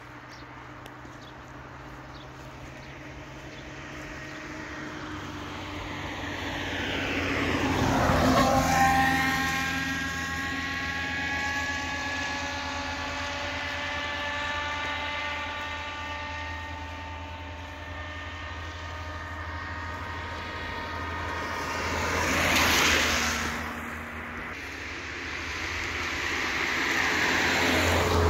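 Motor vehicles passing by. The loudest comes in gradually, peaks about eight seconds in, then drops in pitch as it moves away. Two shorter passes follow near the end.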